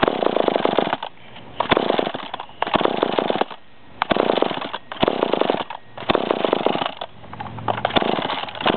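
McCulloch Eager Beaver two-stroke chainsaw being pull-started, its engine cranking and sputtering in short bursts about once a second with each yank of the starter cord. It is a hard-starting saw that won't stay running.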